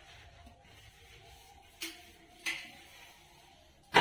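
Two brief clinks of kitchenware, about two seconds in and a little over half a second apart, over a quiet room background.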